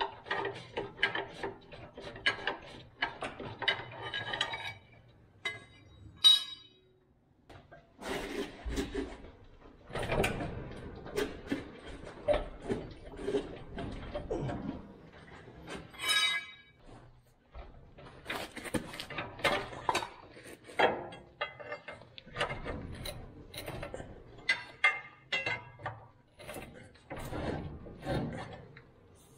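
Irregular metal clicks, clanks and knocks from hand tools and a transmission jack as a heavy truck transmission is worked loose and moved back off the bell housing, with short pauses between bursts of work.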